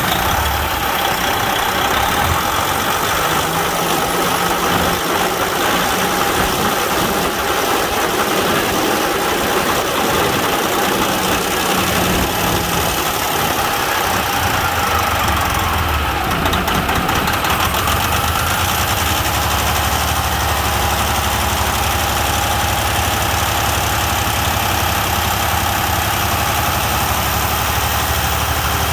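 Freightliner Century semi truck's diesel engine idling steadily, freshly started after a fuel filter change.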